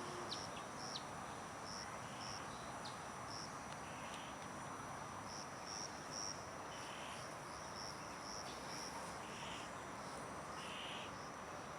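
Faint outdoor ambience: a soft steady hiss with a thin, steady high tone and short high-pitched chirps every second or so.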